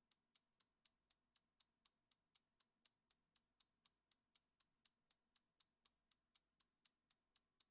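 Ticking clock sound effect, faint and even at about four ticks a second, marking the countdown time for choosing an answer.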